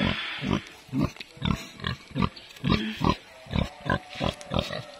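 Pregnant sow grunting in quick, short, low grunts, about two to three a second, as she roots at the ground with her snout.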